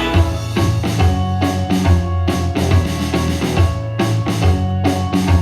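Instrumental break of an upbeat pop-rock song: a drum kit keeps a steady beat of about two strokes a second over bass and held instrument chords.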